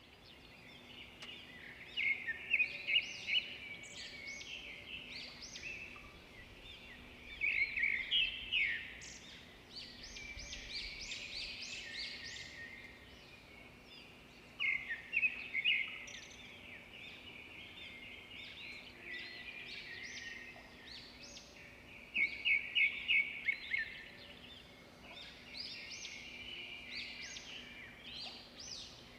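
A songbird singing: about six phrases of quick, high chirping notes, each lasting one to three seconds, with pauses of a few seconds between them.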